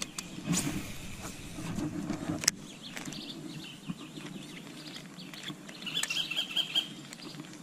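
Outdoor ambience with a low steady hum and scattered small knocks. A bird gives a quick run of short high chirps about six seconds in.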